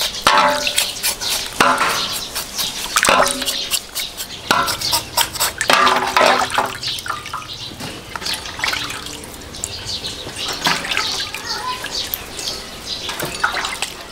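Water splashing and sloshing in a large aluminium basin as pieces of pig's head skin are rubbed and turned over by hand. The splashes come in irregular bursts, busier in the first half and lighter from about halfway on.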